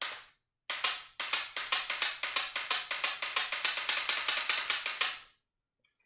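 A single sharp dry-fire click of an AR-15 trigger fitted with a Blackbeard X auto-reset magazine. Then, after a short gap, a rapid, even run of sharp clicks, about five or six a second, that goes on for some four and a half seconds before stopping.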